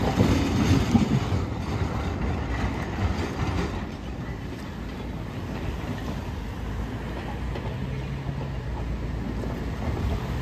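Passenger coaches of a narrow-gauge heritage train rolling along the track, with wheels clacking over the rails. The sound is loudest in the first few seconds and fades as the rear observation car draws away.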